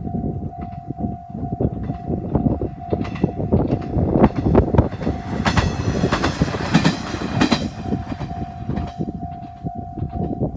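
Level-crossing alarm sounding a steady tone as a diesel railcar runs over the crossing, its wheels clacking over the rail joints. The train is loudest a little past the middle and drowns out the alarm, which stands out again near the end.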